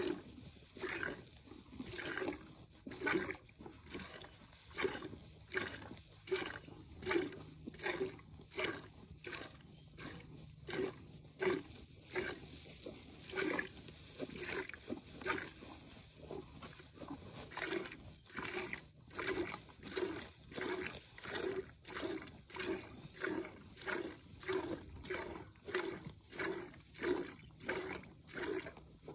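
Hand-milking a Jersey cow: jets of milk squirting from the teats into a metal pail, a rhythmic swish about two squirts a second.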